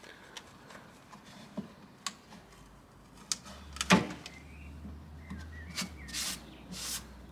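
Workshop handling noises on the car: scattered clicks and knocks, a louder knock about four seconds in, and short rubbing scrapes near the end, over a low steady hum in the middle.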